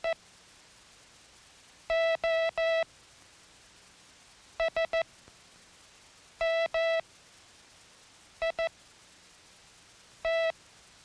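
Morse code tone keyed by hand, a steady beep switched on and off in clean dits and dahs. The letters are made only of dits or only of dahs: three dahs, three dits, two dahs, two dits, then a single dah (O, S, M, I, T), with even, rhythmic spacing.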